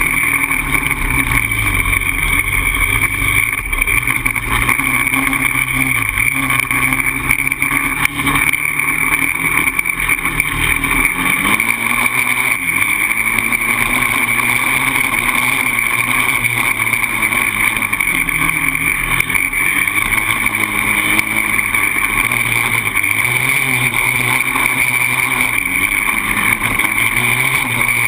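Polaris Outlaw 525 quad's single-cylinder four-stroke engine running under load as it is ridden, its pitch rising and falling repeatedly with the throttle.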